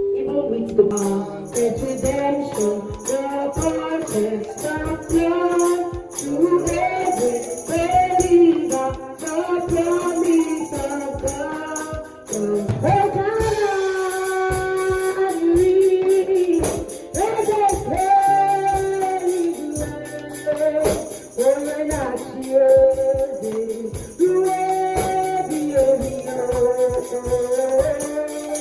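Gospel worship music: voices singing a melody over a steady beat of rhythmic jingling percussion.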